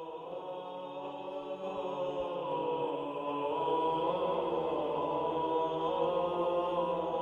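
Slow background music of long held, chant-like tones that swell gradually louder.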